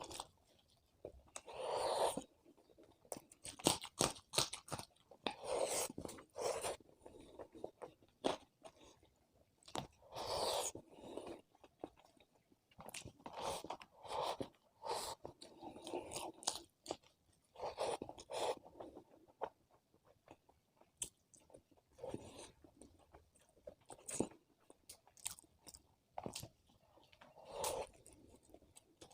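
A person chewing and crunching food close to the microphone, with wet mouth sounds and sharp clicks, in rounds every second or two.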